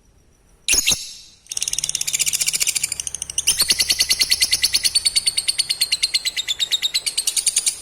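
Lovebird giving its long 'ngekek' chatter: a short call, then a rapid trill of high, evenly repeated notes lasting about six seconds, louder from about halfway in.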